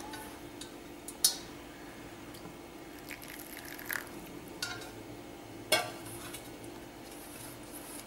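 A hand rubbing and crumbling rice flour with oil in a stainless steel bowl, with a few sharp clinks of the hand against the steel. The loudest clinks come about a second in and near six seconds in.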